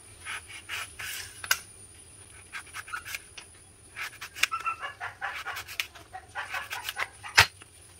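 Kitchen knife slicing raw breadfruit thinly on a wooden chopping board: a run of short crunching cuts and knocks of the blade on the board, with the loudest, sharpest knock near the end.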